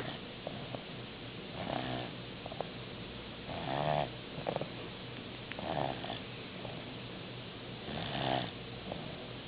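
Snoring in a slow, even rhythm: four snores about two seconds apart, each lasting about half a second, with a few faint clicks between them.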